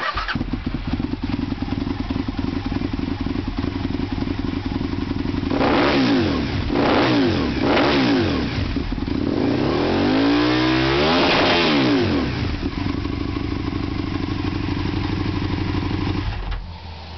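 Aprilia SL1000 Falco's 1000 cc V-twin running through an aftermarket Raven exhaust silencer. It idles, is blipped three times in quick succession, then revved once for longer, and settles back to idle before dropping away near the end.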